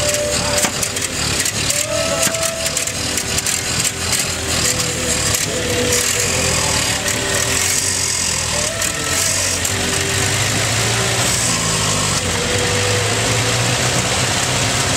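Car engines running as cars drive off, a steady low engine note strongest in the second half, with people talking.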